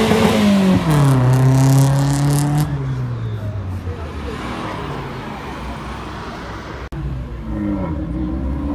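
A car engine revving hard as the car accelerates, its pitch dropping once under a second in, holding for a couple of seconds and then fading as it pulls away. Another burst of engine revving comes near the end.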